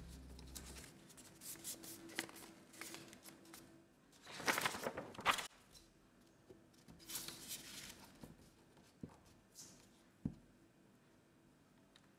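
A4 printer paper handled and folded by hand, rustling and crinkling in short irregular bursts, the loudest about four to five seconds in, with a few soft taps near the end.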